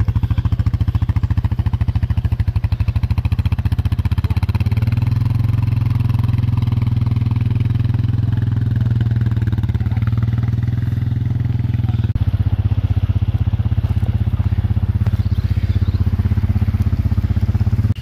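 Quad bike (ATV) engine running steadily close by, a low even pulsing throughout.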